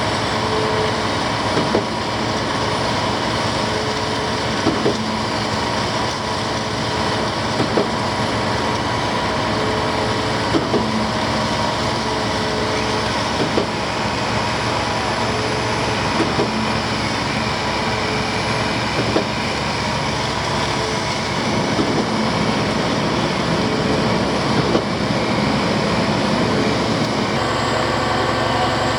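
Concrete pump truck running steadily under load, with a sharp clunk repeating about every three seconds as the pump cycles its strokes while pushing concrete.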